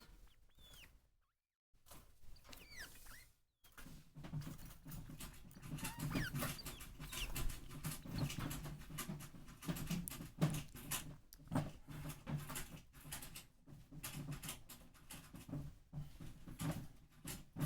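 Pet degu calling: a few short, high squeaks with sliding pitch, then a low, fluttering run of sound full of quick clicks and rustles. This is its 'pet me' call, made when its owner comes up to the cage while it gives gentle, affectionate nibbles.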